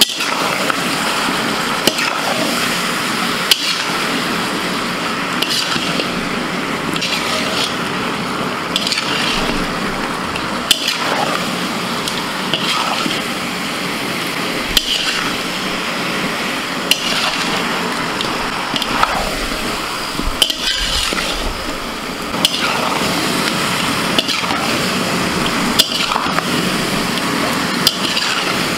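Chicken and potato curry sizzling in a large metal kadai while a spatula stirs it, knocking and scraping against the pan every second or two.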